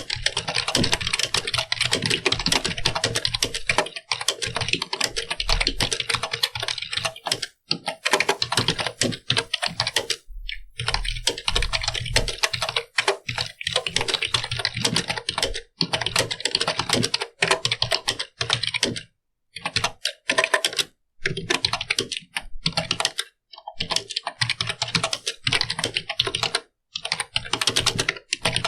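Computer keyboard being typed on: a fast, continuous stream of key clicks, broken by short pauses every few seconds.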